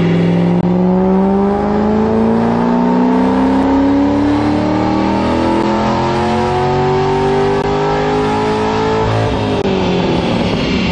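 2007 Corvette's cammed LS V8 making a full-throttle pull on a chassis dyno, the revs climbing steadily for about nine seconds. Near the end the throttle is lifted and the revs fall away.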